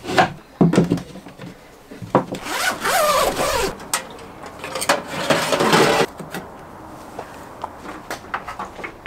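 Plywood frame pieces knocking and rubbing as they are handled, with a few sharp knocks at the start and a scraping, squeaky stretch about three seconds in, then quieter handling bumps and rustles.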